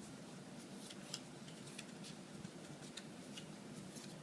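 Yu-Gi-Oh trading cards being handled and sorted, with faint scattered clicks and light rustles as cards are slid and laid down.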